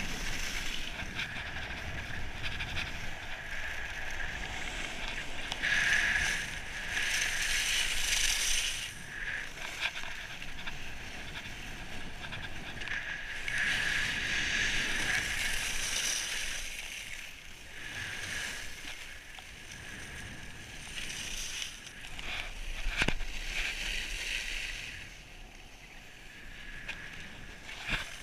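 Skis hissing and scraping over packed snow on a downhill run, with wind on the microphone, the hiss swelling and fading in surges with the turns. A faint steady high tone runs underneath.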